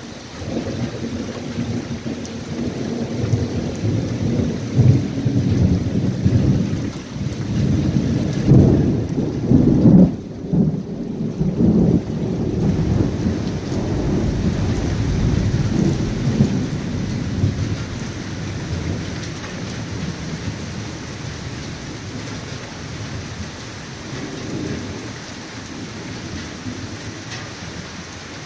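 Rolling thunder from a nearby thunderstorm, a long deep rumble that builds, is loudest about ten seconds in, and dies away after about seventeen seconds. Steady rain hisses throughout.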